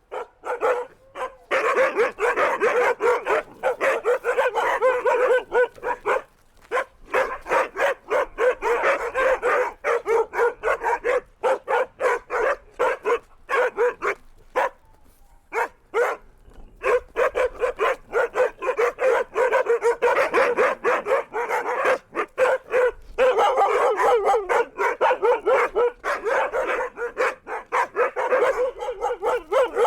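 Siberian huskies barking in rapid, near-continuous volleys of short calls. A sparser, quieter stretch comes about halfway through.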